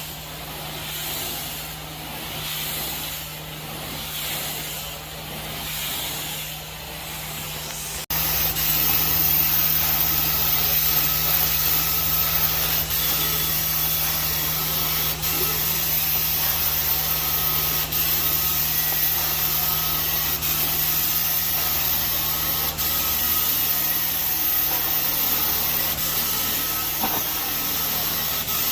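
Truck-mount carpet-cleaning wand (a 4-jet titanium steam wand) spraying and sucking at the carpet, heard as a hiss of spray and vacuum. For the first several seconds the hiss swells and fades in slow, even strokes. About eight seconds in it jumps to a louder, steady suction hiss with a faint thin whistle, over a steady low hum.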